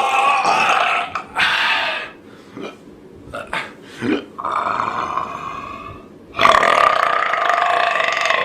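Deliberate, long drawn-out belches from a person, one after another. A quieter stretch of short sounds comes in the middle, then a loud, long belch starts about six and a half seconds in.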